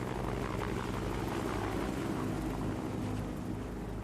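Aircraft engine and propeller running with a steady drone, holding an even pitch and level throughout.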